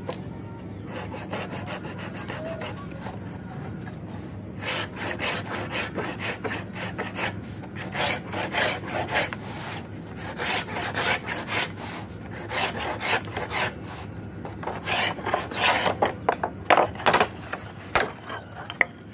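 Marking gauge's cutter drawn again and again along a laminated wooden board, scoring it with short scraping strokes. The strokes start about four seconds in and get louder near the end as the cut deepens.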